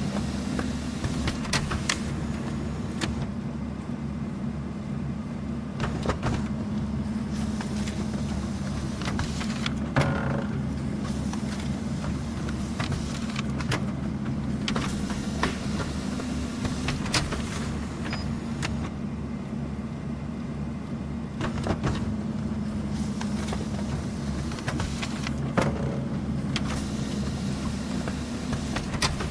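Office printer running: a steady motor hum with scattered clicks and knocks as paper feeds through.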